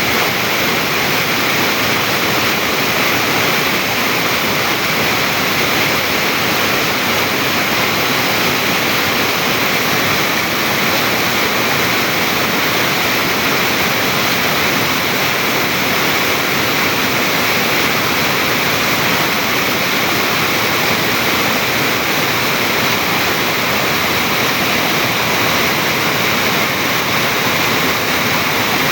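Stream water rushing and splashing over rock, a steady, even rush with no breaks.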